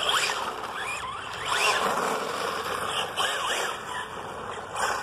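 Brushless electric RC car motor (TP Power 2100 kV on 6S) whining up and down in pitch several times as the throttle is pushed and eased during a speed run, over a steady hiss.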